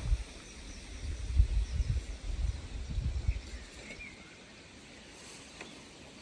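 Gusts of wind buffeting the microphone in irregular low rumbles during the first half, easing off after about three and a half seconds, with a couple of faint bird chirps in the background.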